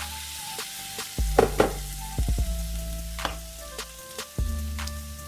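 Ground chicken taco meat sizzling in a pan just after water has been added, with stirring in it. Background music with held bass notes and a regular beat plays throughout.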